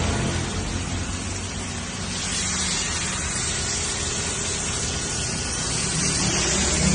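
Pressure washer spraying: a steady hiss of high-pressure water with a low motor hum under it, cutting off suddenly at the very end.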